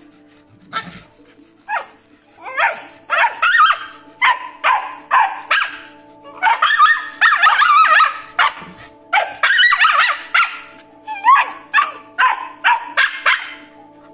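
A Shiba Inu and a Great Dane puppy play-fighting with many short, high-pitched barks and yips in quick runs, a long unbroken flurry in the middle.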